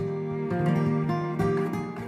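Background music of gently plucked acoustic guitar, its notes ringing on and overlapping.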